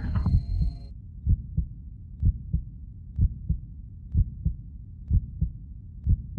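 Music stops about a second in, and a heartbeat sound effect follows: paired low thumps, lub-dub, about one pair a second.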